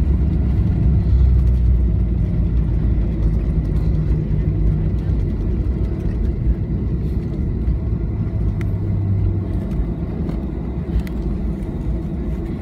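Boeing 737-800 cabin rumble during the landing rollout: the jet's engines and its wheels running on the runway make a steady low roar that slowly eases as the airliner decelerates.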